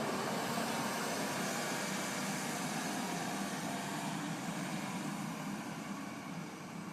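A motor or engine running steadily with a low hum and hiss, slowly fading toward the end.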